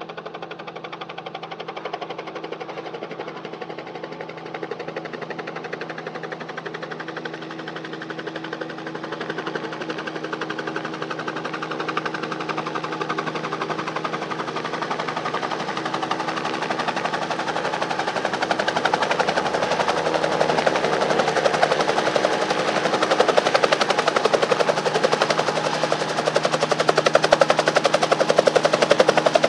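A 1955 Hiller piston helicopter in a hover taxi: its rotor blades chop rapidly over the engine's drone. The sound grows steadily louder as it comes closer.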